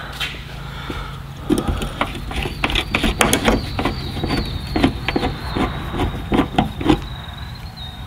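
Irregular clicking and knocking as the luggage-door latch rod and its hardware are handled, starting about a second and a half in and stopping near the end. Underneath there is a faint steady high whine and a low hum.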